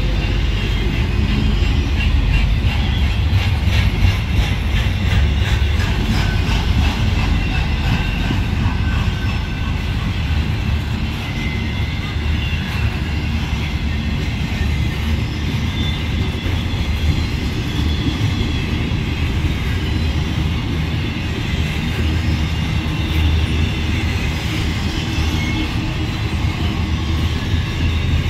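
Norfolk Southern intermodal freight train's loaded container well cars and spine cars rolling past. There is a steady heavy rumble of steel wheels on rail, with clicking over rail joints most noticeable in the first several seconds.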